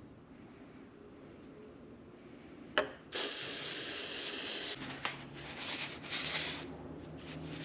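An aerosol cleaner can sprayed through its red straw onto a greasy ball joint: a click, then a steady hiss lasting about a second and a half. It is followed by a rag rubbing and wiping the part.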